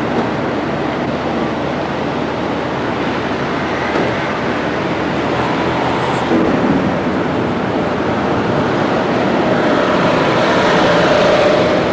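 Steady vehicle road noise of tyres and engine on the highway, with a faint steady tone coming up near the end.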